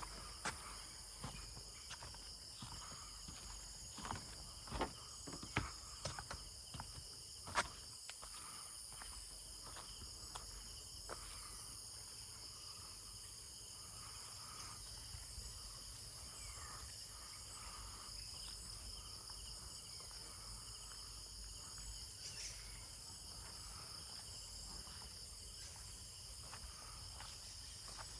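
Steady high-pitched chorus of insects, several calls layered at different pitches. A few sharp knocks stand out in the first eight seconds, the loudest a little after seven seconds in.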